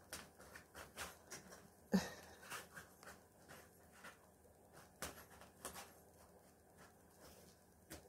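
Kitten scrabbling and pouncing around a fabric play tunnel on a rug: irregular light rustles, taps and scratches, with one louder knock about two seconds in.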